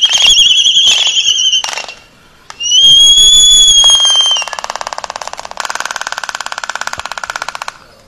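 Laysan albatrosses in courtship display: a wavering high whistled call, then a second whistle that rises and falls, followed by a rapid bill-clattering rattle lasting about three seconds.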